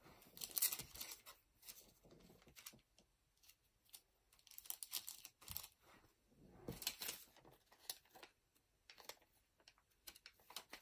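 Crinkling and rustling of a clear plastic tamper-proof bag as a foil booster pack is handled and sealed inside it. It comes in several short bursts, loudest about half a second in and again around seven seconds in.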